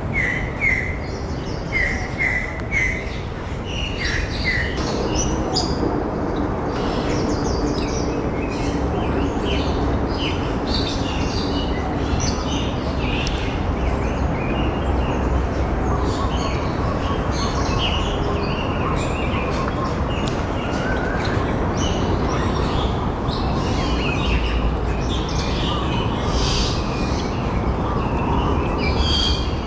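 Many small birds chirping and calling, short notes and trills one after another, over a steady rushing background noise.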